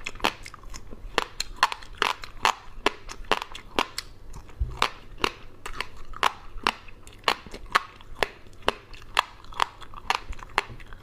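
Close-up mouth sounds of a person chewing crunchy fried insects: a quick run of short, sharp crunches, about three a second, with wet chewing between them.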